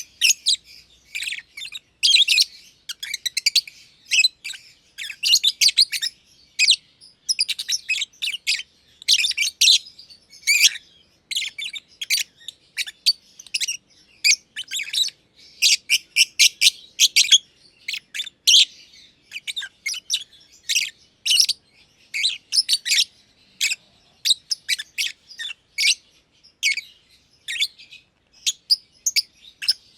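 Two masked lovebirds chirping continuously in quick bursts of short, shrill, high-pitched notes, with brief pauses between bursts.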